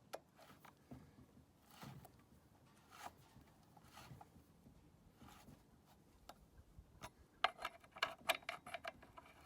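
Faint metal clicks and scrapes from hand work on a chainsaw's bar nuts and chain, with a quick run of sharper clicks in the last two seconds.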